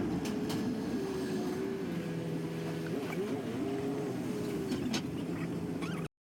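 Vehicle engine and road noise while driving, the engine note rising and falling repeatedly with light ticks over it. The sound cuts off abruptly near the end.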